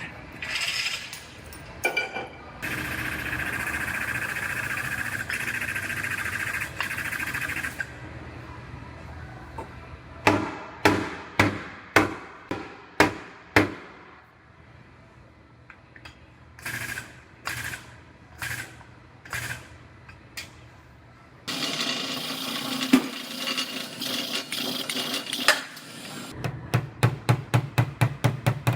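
Hammer taps on car body sheet metal, coming in runs of sharp strikes and ending in a fast series of about six a second. Two stretches of steady machine noise come between them.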